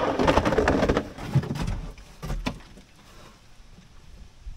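Gravel crunching and scraping under a person shifting and crawling on it, loudest in the first second, then fading to a few faint knocks.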